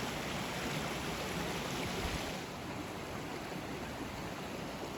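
Creek water rushing steadily, flowing under and around melting ice; the rush gets a little softer about halfway through.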